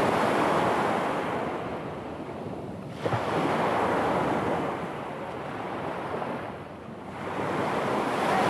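Sea surf breaking on a pebble beach: a rushing hiss that swells and fades with each wave, three surges in all, one crashing in suddenly about three seconds in.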